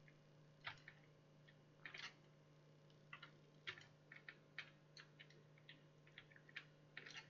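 Faint, irregular clicks of a computer mouse and keyboard, about fifteen spread unevenly, over a low steady hum.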